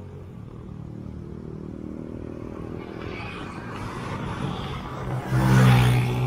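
Motor vehicle engine running on the move along a road, with tyre and road noise growing slowly louder. About five seconds in, a much louder engine and road noise swell up suddenly, as of a vehicle passing close by.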